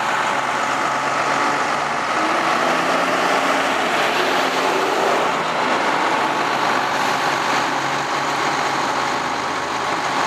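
Fire engine's motor running steadily as the apparatus stands at the fire, a loud even rushing noise over a low engine hum.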